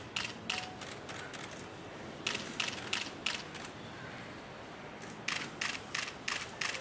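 Camera shutters clicking in quick runs, three clusters of sharp clicks a few tenths of a second apart, as photographers shoot the dancers while they hold a pose.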